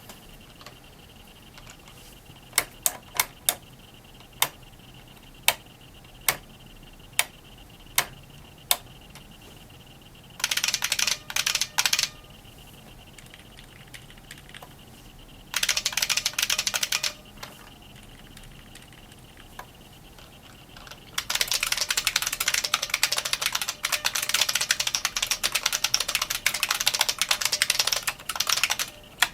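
IBM 3178 mechanical keyboard being typed on: first about ten single key presses, then two short bursts of typing, then fast continuous typing from about two-thirds of the way in. A faint steady high whine runs underneath until the continuous typing starts.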